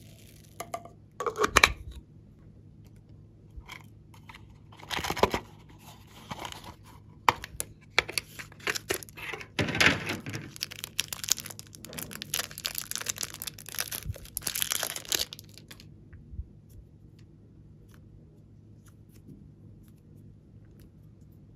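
Thin plastic wrapper crinkling and tearing as a stick of green modelling clay is unwrapped, in a dense run of crackles lasting several seconds past the middle, with a few shorter rustles and taps of handling before it.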